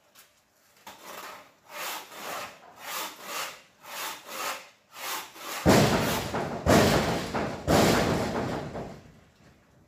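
Rhythmic scraping strokes, about one a second. The last three, from about halfway through, are much louder and rougher.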